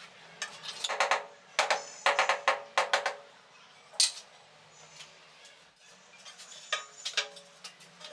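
A series of sharp, ringing clinks and taps of ceramic tiles and tiling tools being handled and knocked together. They come in clusters through the first three seconds, then one sharp click, then a few more strikes near the end.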